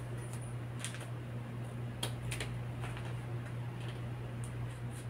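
Scattered light clicks and taps of a felt-tip marker and tape measure being handled on a paper pattern on a table, about half a dozen in all, over a steady low hum.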